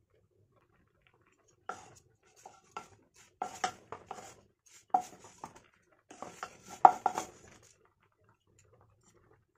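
Wooden spatula scraping and knocking against a nonstick frying pan as toasted bun halves are turned and lifted out: an irregular string of scrapes and clatters, the loudest a little past the middle.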